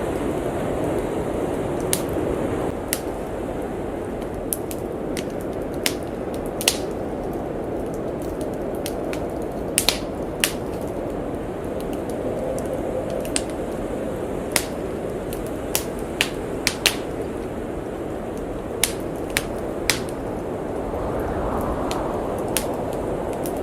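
Steady blizzard wind rushing, with a wood fire crackling over it in frequent, irregularly spaced sharp pops.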